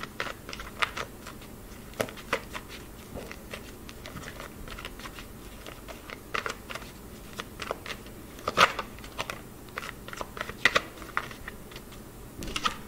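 A deck of tarot cards being shuffled by hand: cards sliding and slapping against each other in irregular soft clicks and swishes. A few louder slaps come in the second half.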